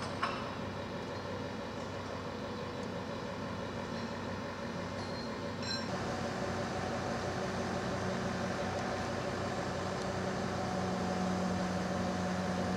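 Mobile crane's diesel engine running steadily under load, its tone shifting about six seconds in.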